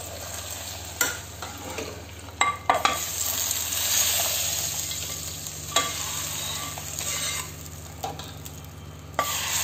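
Hot oil tempering (tadka) sizzling as it is poured from a frying pan into tomato dal, the hiss swelling through the middle and easing off. A steel ladle scrapes and clinks against the pan several times as the last of the tempering is scraped out.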